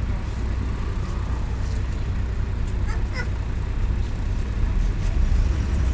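Steady low rumble of a MAZ-105 city bus's engine and road noise, heard from inside the moving bus.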